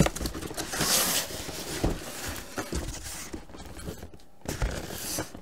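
Cardboard shipping box being opened by hand: the flaps and a cardboard insert scraping and rustling against each other, with small knocks, louder about a second in and again near the end.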